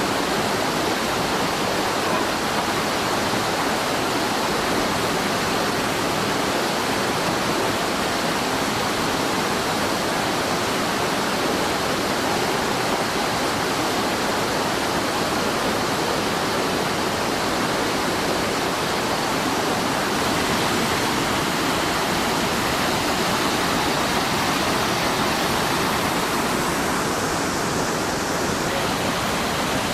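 Whitewater cascade on a steep boulder creek: water pouring over and between rocks in a steady, unbroken rush.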